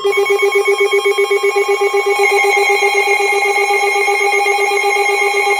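Emergency Alert System alert tones from a weather radio and FM radios sounding together: a low, rapidly pulsing beep under steady, higher alert tones. This is the attention signal that opens a tornado warning broadcast.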